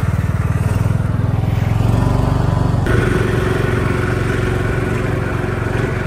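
A motor vehicle's engine running close by, with a steady pulsing beat that rises slightly about a second in. Its tone changes about three seconds in.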